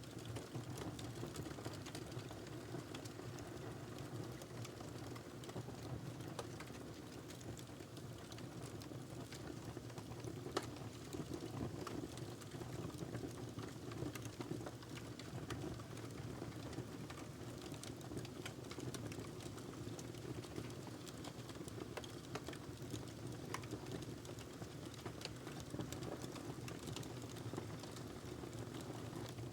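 Log fire in a fireplace crackling steadily, with many small irregular snaps over a low, even burning hiss, and one louder pop about ten seconds in.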